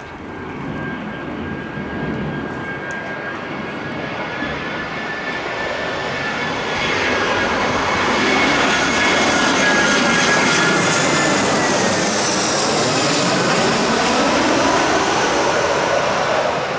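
Airbus A320's CFM56 jet engines on landing approach, growing louder as the airliner passes close by; a high engine whine drops in pitch as it goes past, and the sound then eases off near the end.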